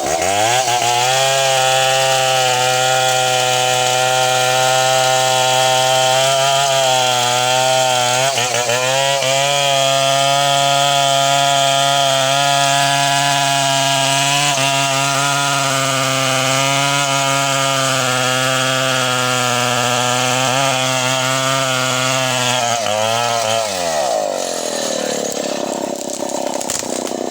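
Chainsaw revved up to full throttle and held there while cutting wood for over twenty seconds, its pitch dipping briefly about eight seconds in, then let off and dropping back toward idle near the end.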